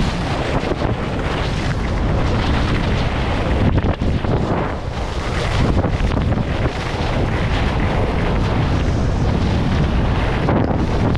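Steady wind rush buffeting a GoPro's microphone, with no pitched sound or voices in it.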